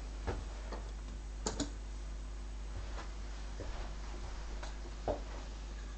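Scattered light knocks and clicks as steel-tip darts are retrieved from a bristle dartboard, the sharpest a quick pair of clicks about a second and a half in.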